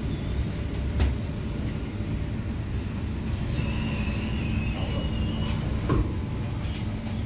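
MTR Tung Chung line K-Train electric multiple unit standing at the platform with a steady low hum, its passenger doors and the platform screen doors sliding open about halfway through with a thin whine and a thump near the end.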